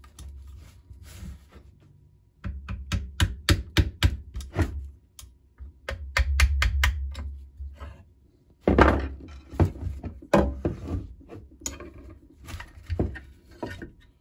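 Knocks and taps of a hammer and tools on a Carcano M91 rifle as its barrelled action is worked free of the wooden stock. A quick run of sharp taps comes first, then a short low rumble and a pause, then heavier knocks and clunks near the end.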